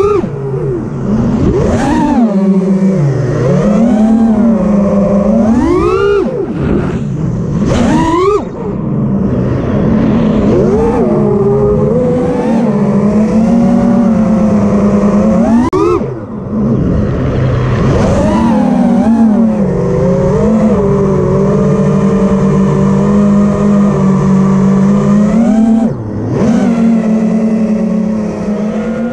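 Armattan Rooster 5-inch FPV racing quadcopter in flight: its brushless motors and props whine loudly, the pitch swooping up and down with the throttle. The whine drops out briefly three times as the throttle is chopped.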